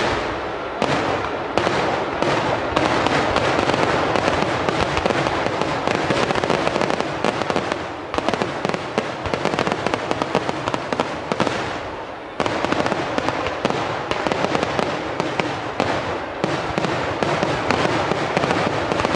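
Festival fireworks display: a dense, continuous barrage of firecracker bangs and crackling. It thins briefly about twelve seconds in, then picks up again with a loud burst.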